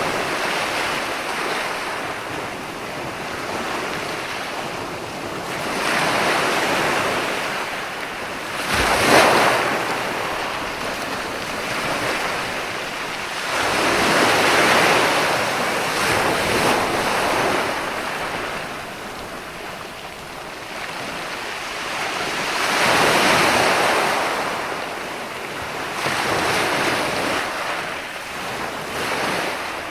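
Ocean waves breaking and washing on a shore: a rushing hiss that swells and falls back every several seconds, with the sharpest break about nine seconds in.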